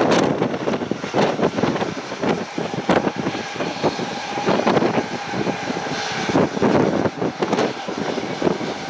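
Airbus A320 airliner's twin jet engines and airframe as it comes in low over the runway to land. The sound is a loud, uneven rushing noise that surges irregularly.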